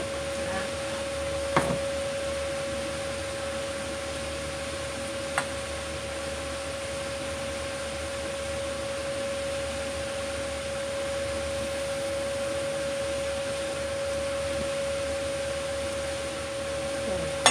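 A kitchen appliance motor runs with a steady whirring hum and one constant mid-pitched tone. A couple of light clicks come about two and five seconds in.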